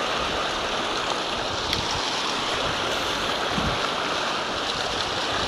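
Steady rushing of water pouring from a dam spillway, an even noise without breaks.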